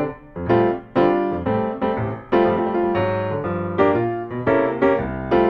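Background music: piano playing a run of single struck notes and chords, each ringing and fading before the next.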